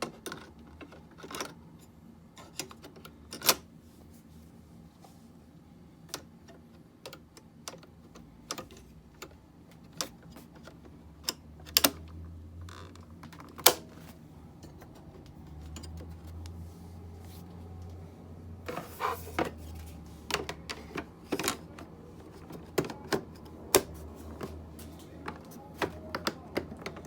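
Irregular sharp clicks, taps and knocks of small hard parts being handled during a computer hard drive replacement, with a busier run of taps in the second half.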